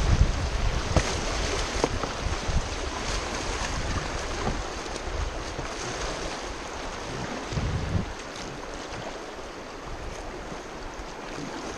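Wind buffeting the microphone in low rumbling gusts over a steady hiss of wind and moving water; the gusts ease off about eight seconds in.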